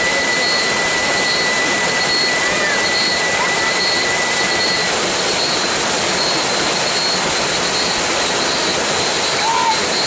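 Waterfall cascading over rock close to the microphone: a loud, steady rush of splashing, falling water.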